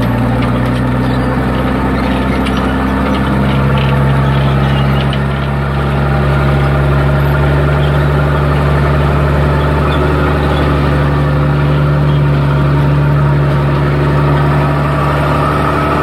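The engine of a 1928 Lombard auto tractor (log-hauler dump truck) running steadily at low speed. Its pitch steps up slightly about three and a half seconds in, then holds.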